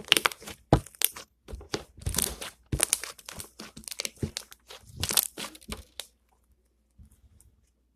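Slime being squished and stretched by hand, with a run of sharp crackling pops from trapped air, stopping about six seconds in.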